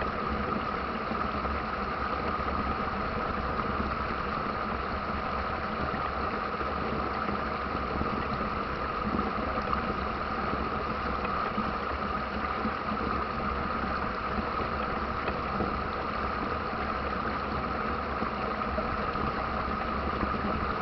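Steady rushing of river rapids: an even, unbroken water noise.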